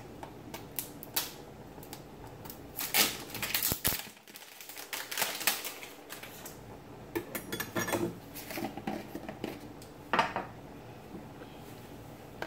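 A container of Country Time lemonade mix being opened and handled on a kitchen counter: irregular clicks, taps and scrapes, with a quick run of ticks about two-thirds through and a short, louder rustle near the end.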